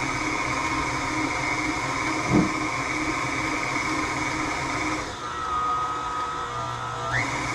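Electric mixer running at speed through cookie dough with a steady motor whine. About five seconds in the pitch drops lower for a couple of seconds, then climbs back up near the end. One short knock about two seconds in.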